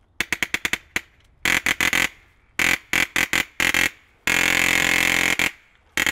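Airsoft electric rifle firing several short bursts of rapid shots, with brief pauses between them; the longest burst, about a second, comes in the second half.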